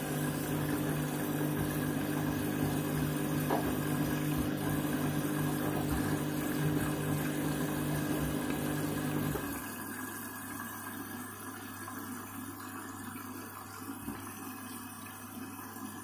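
Candy front-loading washing machine on a rinse fill: the drum motor runs with a steady whir as the drum turns the sudsy laundry, over the sound of water running in and sloshing. The motor stops about nine and a half seconds in, leaving a quieter low hum and the water still filling.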